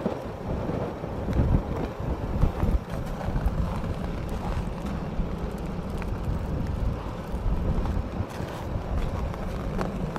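Wind buffeting the microphone: an uneven low rumble with a faint hiss above it.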